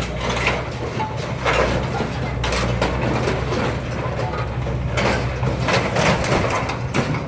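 A heavy machine's engine running steadily while the sheet metal of a Gleaner combine is torn apart, with several sudden crunches and bangs of metal.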